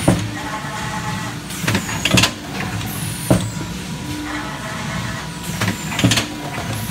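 PT-2S yogurt cup filler and sealer running. Its air-driven cylinders cycle with a sharp hiss of exhaust air and a clunk every couple of seconds, over a steady machine hum.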